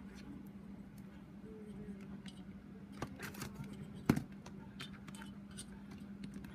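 Quiet handling of a plastic ruler, pencil and cardstock on a cutting mat: scattered light taps and paper rustles, with one sharper knock about four seconds in.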